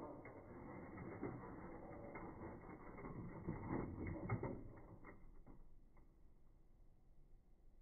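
WPL D12 RC pickup truck's small electric motor and plastic gearbox running as it drives in, a rough whirring with gear clatter and clicks that peak about four seconds in, then fading to quiet as the truck stops.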